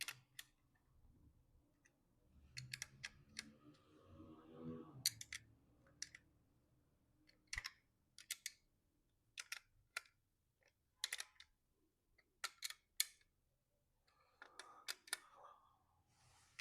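Scattered light clicks and taps, about a dozen at irregular intervals, from a hand tool working the nuts on a printer's glass ink tank as they are tightened evenly a little at a time.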